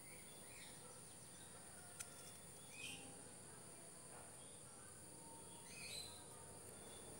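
Faint background of a steady high insect drone with a few short bird chirps, the clearest about three and six seconds in, and a single light click about two seconds in.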